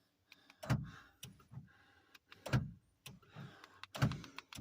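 Three dull thumps, about a second and a half to two seconds apart, with faint rustling between them.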